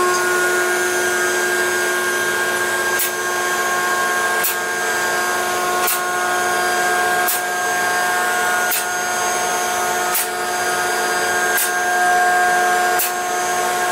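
Two-post car hoist raising a car: its electric hydraulic pump motor runs with a steady whine, and the safety locks on the posts click about every second and a half as the carriages climb past each notch.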